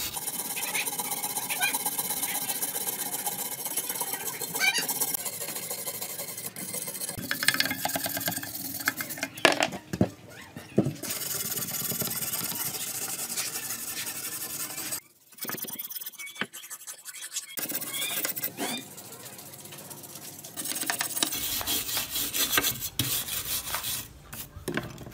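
Abrasive rubbing strokes, sanding or rasping against a hard surface in fast repeated passes. The noise breaks off abruptly a few times, with a few sharper knocks near the middle.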